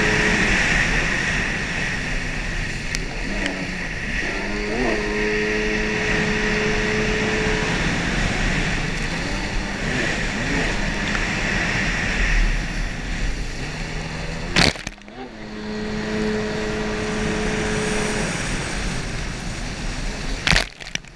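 Stand-up racing jet ski's engine running at speed under rushing water and wind on the onboard camera, the engine holding a steady pitch for a few seconds at a time. The sound breaks off suddenly for a moment about two-thirds of the way through.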